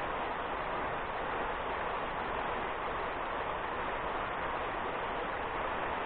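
River water rushing steadily over rocks.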